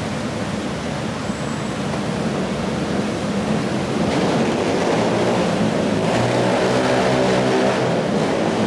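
Steady hiss of rain and wet city traffic. A motor vehicle's engine hum grows louder from about four seconds in and is most prominent near the end as it passes.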